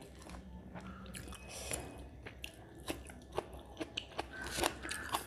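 Close-miked eating sounds: chewing a mouthful of rice and mutton curry, with irregular wet mouth clicks, as fingers mix the rice on the plate.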